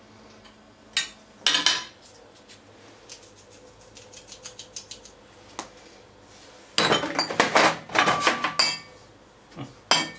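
Metal kitchen tongs clinking against a ceramic plate as trout fillets are turned: two sharp clinks about a second in, faint ticking, then a denser run of clicks and clatter near the end.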